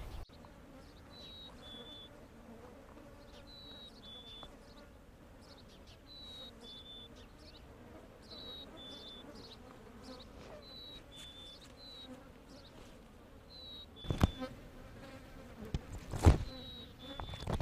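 Insects buzzing over a carcass, with a high two-note whistle, the second note a little lower, repeating every couple of seconds. A few sharp loud knocks near the end.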